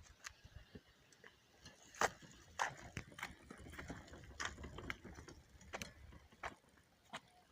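Irregular sharp clicks and taps, about a dozen, unevenly spaced, with a faint low rumble under them in the middle.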